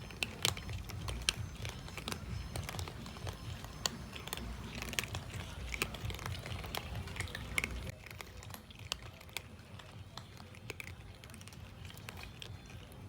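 A cat eating, with irregular crunchy bites and chewing clicks.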